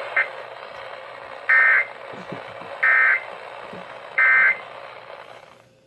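Emergency Alert System end-of-message data tones: three short, harsh buzzing bursts of SAME digital code, about 1.3 s apart, over a steady hiss of radio static. They mark the end of the spoken severe thunderstorm warning.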